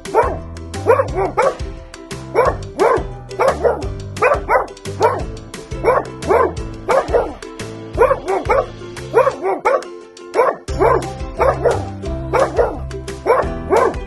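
Pug barking over and over in short, sharp barks, about two a second and often in quick pairs, over background music with a steady bass beat.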